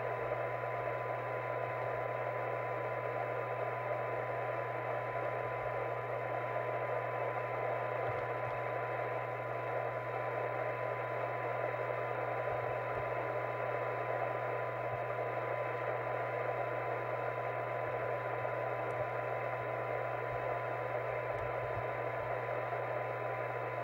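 Binatone 5-star FM CB radio's speaker giving steady receiver hiss with a faint, steady 1 kHz test tone in it: a signal-generator signal of about 0.2 microvolts, right at the limit of the receiver's sensitivity. A low steady hum sits underneath.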